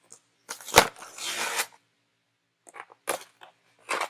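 Doll packaging being handled as the doll is worked out of its box: a sharp knock about a second in, a short crinkling rustle, then a few small clicks and crackles.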